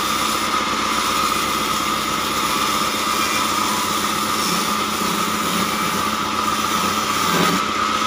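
Sawmill band saw running steadily with a constant high whine while a log is pushed through the blade.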